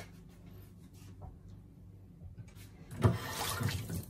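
A low steady background hum. About three seconds in comes a short burst of rustling, scraping noise that lasts about a second.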